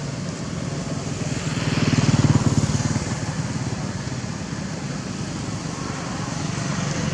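Motorbike engine passing on the road, loudest about two seconds in and then fading, over a steady hum of traffic.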